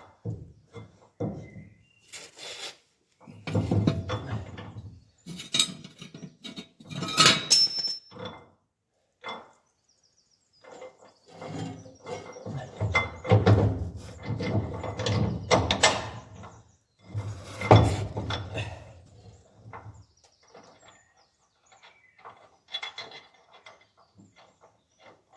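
Irregular clanks, knocks and scraping of heavy steel parts as a spreader's drive shaft is manhandled into place underneath, with a few louder bangs and a short pause about ten seconds in.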